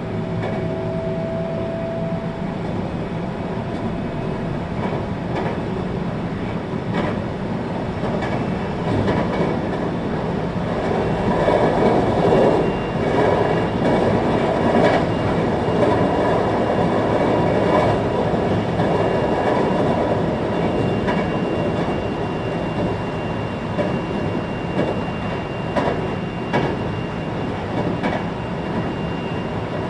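Interior running noise of a 521-series electric multiple unit travelling between stations: a steady rumble of wheels on rail that swells for several seconds in the middle, with scattered clicks from the wheels over the track. A faint whine can be heard at the start.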